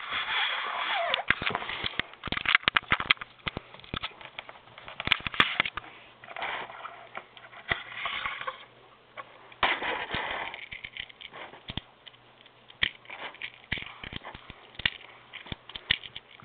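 Small plastic toy pieces being handled and set down on a tabletop: scattered clicks and taps, with a few stretches of rustling and scraping.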